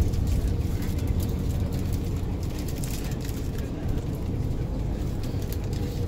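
Steady low rumble of a tour coach's engine and tyres, heard from inside the passenger cabin as it drives.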